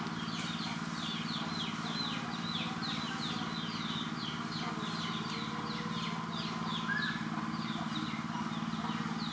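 A bird chirping over and over, short high falling notes about three a second, over a steady low hum.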